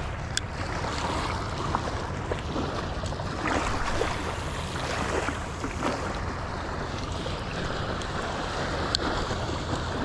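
Surf washing on a beach, with wind buffeting the microphone as a steady low rumble. Two short sharp clicks come through, one just after the start and one near the end.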